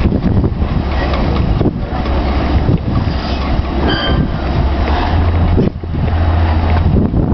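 A workboat's engine running steadily, with wind buffeting the microphone; a short high squeak about halfway through.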